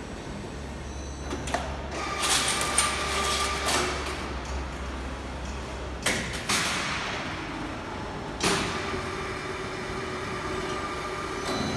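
Pallet-handling line machinery running: a powered roller conveyor moving a pallet of stacked corrugated board, with a low hum, a whine and clanking knocks, the loudest about two to three seconds in, and more sharp knocks around six and eight and a half seconds.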